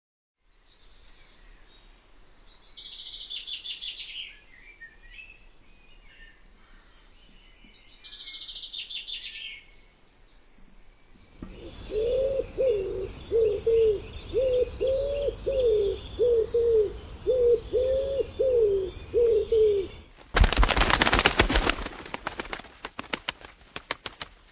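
Pigeon sounds: faint high chirping with two louder bursts of chirps, then a pigeon cooing in a steady series of about a dozen low notes, cut off abruptly by a loud rapid flutter of flapping wings near the end.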